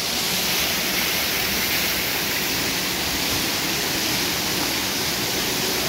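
Steady rush of water spraying and pouring down from a water-park play structure's sprinklers and falling into a shallow pool.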